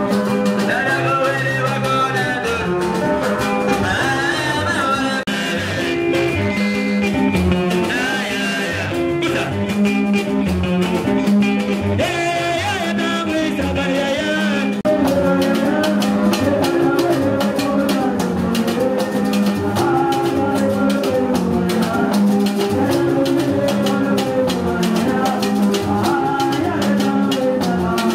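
A live folk band playing: a steady, fast drum rhythm with a voice singing over it in stretches.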